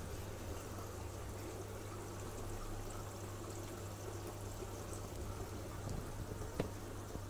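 Aquarium overhead filter running, its return water pouring and trickling steadily into the tank over a low steady hum, with two faint ticks near the end.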